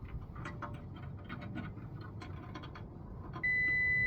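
Small clicks and taps of meter probes being placed, then about three and a half seconds in a digital multimeter's continuity beeper sounds a steady high beep, held: continuity across the furnace's rollout switch, showing the switch closed.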